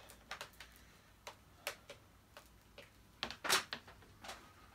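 Scattered light clicks and taps at irregular intervals, with one louder knock about three and a half seconds in: handling noise while getting ready to switch on a vacuum cleaner, its motor not yet running.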